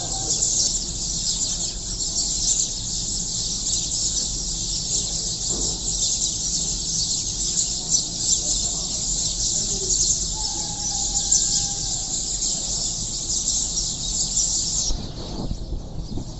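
A dense chorus of many sparrows chirping at once, a continuous high-pitched chatter that drops away sharply near the end.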